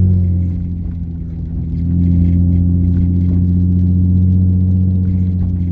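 Nissan 350Z Nismo's 3.5-litre V6 engine and exhaust droning steadily at a constant speed, heard from inside the cabin. The note holds one pitch, easing off slightly about a second in and picking back up.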